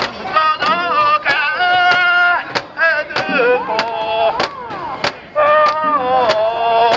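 Men's voices chanting a held-note festival song as they carry a mikoshi portable shrine, with sharp wooden clacks struck in a steady beat about every half second.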